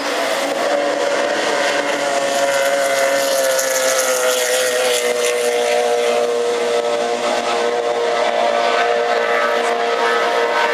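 Racing powerboat engine running hard at high revs as the boat skims across the water, its pitch sagging slightly over the first few seconds and then holding steady.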